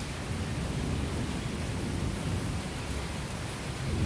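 Steady rain falling, an even hiss with a low rumble underneath that swells near the end.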